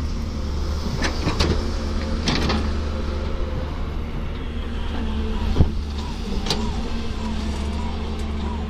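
Excavator's diesel engine running steadily, with several sharp knocks and clanks over it, the loudest a little past halfway.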